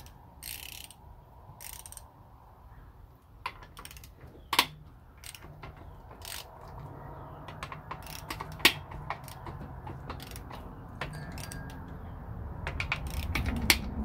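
Long-handled socket ratchet clicking in irregular strokes as it loosens the 13 mm main bearing cap bolts of an LS V8 block, with a few sharp metal clicks.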